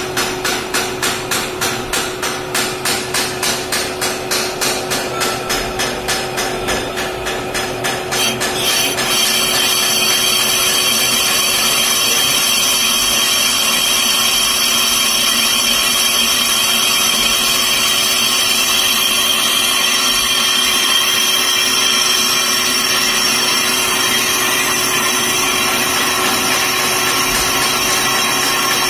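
Metal lathe machining the inside of a motorcycle brake hub. At first the cutting tool knocks rhythmically, about three times a second. From about eight seconds in this gives way to a steady cutting noise with a high whine over the lathe's running hum.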